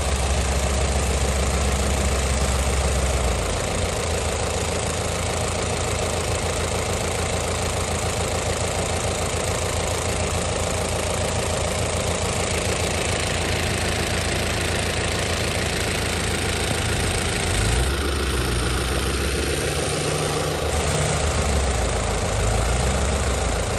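Farm tractor's diesel engine running steadily while it works through deep mud, with a deep low rumble that is heavier in the first few seconds and again near the end.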